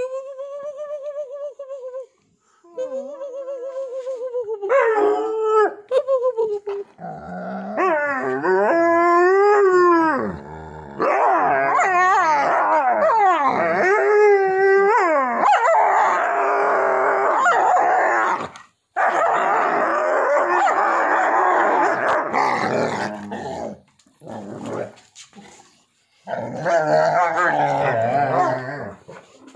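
Large dog vocalizing in play: wavering howls whose pitch slides up and down, turning after about ten seconds into long stretches of rough growling and grumbling with short breaks.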